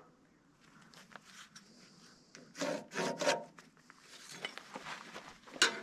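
Marking a line across a freshly sawn wooden beam with a metal square: the square scraping on the wood and the marker rubbing along it in a few short strokes about halfway through, with a sharp click near the end.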